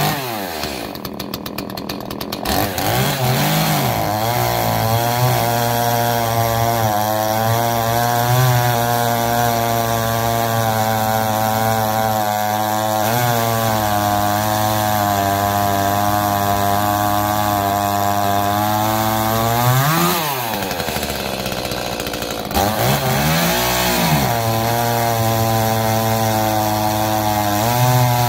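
Echo CS-310 small two-stroke chainsaw held at high revs while cutting wood with its stock Oregon chain. The engine pitch drops and climbs back sharply about two-thirds of the way in, dips twice more shortly after, and revs again near the end.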